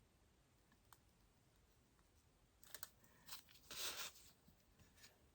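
Mostly near silence, with a faint click about a second in and a few short, soft rustling noises past the middle, the loudest at about four seconds.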